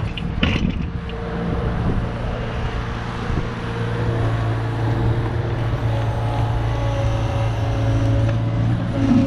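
Kubota KX71 mini excavator's diesel engine running steadily under working load, with the hydraulics pulling as the bucket is worked. Short knocks of soil and bucket come in the first second as a load is dumped.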